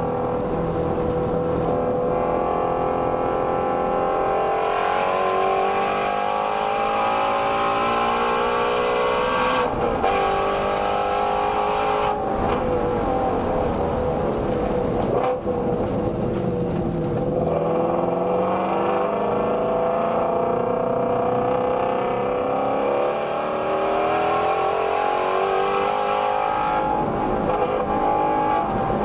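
2017 Ford Shelby GT350's 5.2-litre flat-plane-crank V8 running hard at high revs, heard through an exhaust microphone. Its pitch climbs steadily and breaks briefly at an upshift about ten seconds in, then keeps rising. It falls away around seventeen seconds in and climbs again toward the end.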